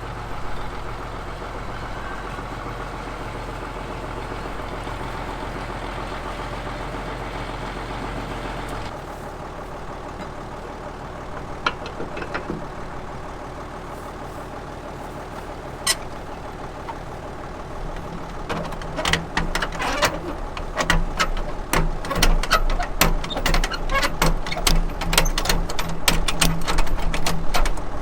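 Farm tractor's diesel engine running steadily, its note changing about a third in. From about two-thirds in, loud rapid metallic rattling and clanking joins the engine as the tractor tows the mower conditioner.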